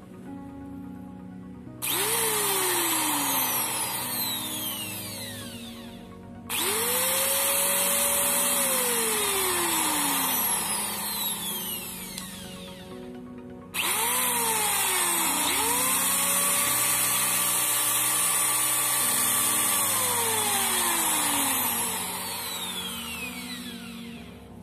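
Hoyoma corded impact drill run three times with no load: each time the motor cuts in abruptly, whines straight up to a steady top speed, then winds down as the trigger is released. It runs at full speed only, its slow speed lost after the repair bypassed the speed control.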